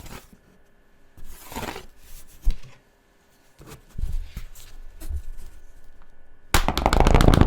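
Felt-tip pens and paper being handled: scattered taps and knocks and a brief rustle, then a loud run of rapid scratchy clicks for about the last second.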